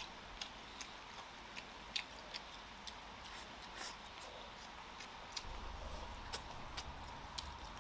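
Faint eating sounds: chopsticks clicking lightly against a rice bowl and soft chewing, in irregular sharp clicks a few times a second. A low hum comes in near the end.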